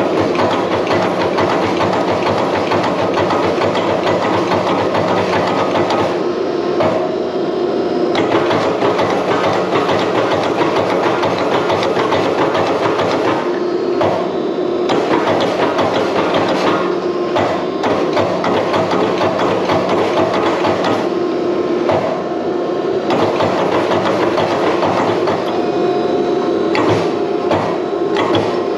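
Steel being hammered in rapid, unbroken strikes while a drawknife is forged, with a metallic ring over the blows.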